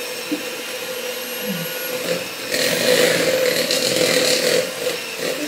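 Electric hand mixer running, its beaters creaming butter, brown sugar and peanut butter into a cookie dough in a plastic bowl: a steady motor whine, with the churning of the beaters getting louder for a couple of seconds about halfway through.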